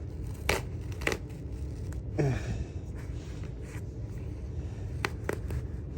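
A used vacuum cleaner bag being handled and pulled at: papery rustling and tearing with a few sharp snaps, over a steady low hum.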